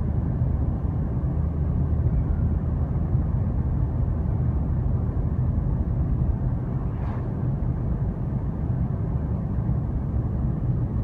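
Steady road and engine noise heard inside a moving car: a low rumble of tyres on the road with a faint, even engine hum, and a brief faint swish about seven seconds in.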